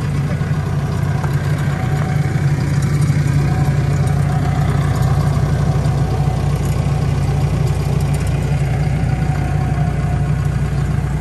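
JCB 220LC tracked excavator's diesel engine idling steadily.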